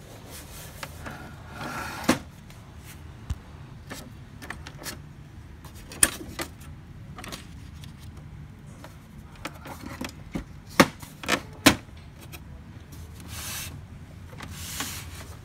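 Plastic parts and paper of a Samsung SCX-4321 laser printer being handled: scattered clicks and knocks, the loudest about six seconds in and a pair near the end, with brief paper rustles and a faint low hum underneath.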